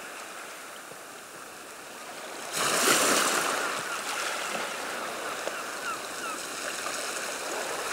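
Sea waves washing in, with a swell about two and a half seconds in.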